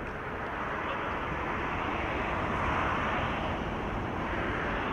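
Steady outdoor ambient noise at a football pitch: an even hiss with no distinct events, growing a little louder around the middle.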